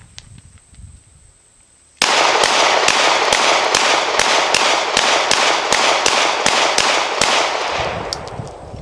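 A 9mm semi-automatic pistol fired rapidly, about seventeen shots at a steady pace of roughly three a second. The string starts suddenly about two seconds in, and the din dies away over a second after the last shot.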